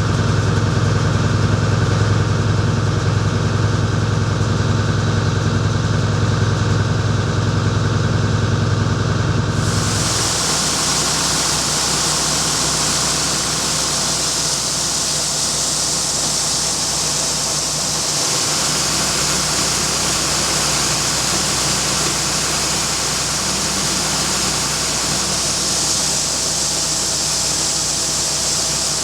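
Farm machinery diesel engine running at a steady speed. About ten seconds in, the sound changes: the engine hum drops back and a steady rushing hiss takes over, with the engine still running underneath.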